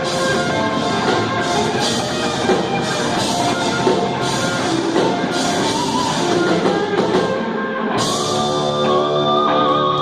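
Rock band playing live, with drums and guitars. About eight seconds in the drum hits stop and a held chord rings on.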